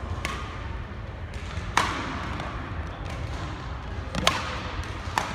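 Badminton rally: rackets striking the shuttlecock with sharp cracks about one to two and a half seconds apart, four times, each ringing briefly in the hall.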